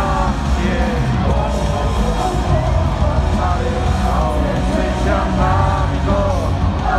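Live rock band playing through a stadium PA, with voices singing over it, recorded from the stands amid crowd shouts.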